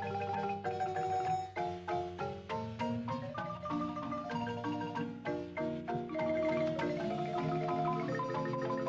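Marimba music: a melody of quickly struck wooden bar notes over lower bass notes, with rapidly repeated rolled strokes sustaining the notes in the second half.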